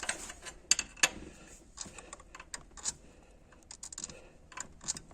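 Irregular light clicks and ticks as the engine is turned over by hand, with no creak from the timing belt: its teeth and belt are not worn the way they were on the creaking engine.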